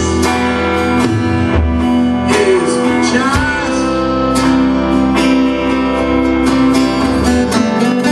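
Live band playing a song, with electric and acoustic guitars over bass guitar and a sung phrase bending in pitch in the middle. The deep bass drops out just before the end.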